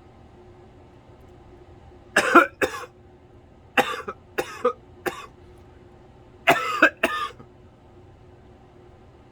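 A person with a bad cough coughing in three short fits, each of two or three coughs, the first about two seconds in, the next about four seconds in and the last near the end.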